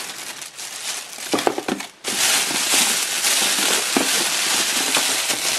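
Plastic wrapping crinkling and rustling as a bicycle helmet is handled and unwrapped: a few scattered crackles at first, then loud, continuous crinkling that starts suddenly about two seconds in.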